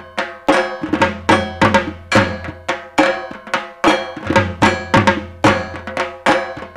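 Dhak, the Bengali barrel drum, beaten with sticks in a steady rhythm of sharp, ringing strokes, about two to three a second.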